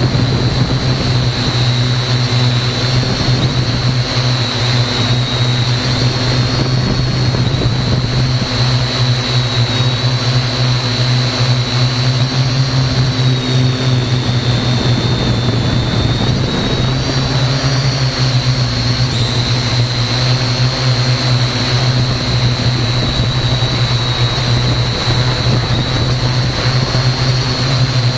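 Parrot AR.Drone quadcopter's motors and propellers running in flight, heard up close from a camera mounted on the drone: a loud, steady whine that drifts a little in pitch over a low hum.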